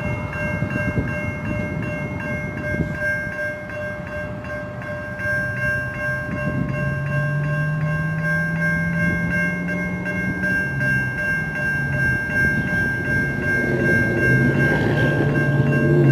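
Railroad crossing warning bell ringing in rapid, even strokes, signalling an approaching trolley. A low droning tone joins about five seconds in and grows louder near the end.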